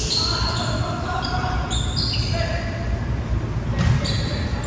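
Basketball game in a gym: sneakers squeaking on the court in short high squeals, the ball bouncing, and players' voices echoing in the large hall.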